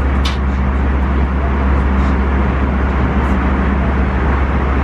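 Airbus A320 cabin noise in flight: a steady deep rumble of engine and airflow noise with a low hum, and one short tick just after the start.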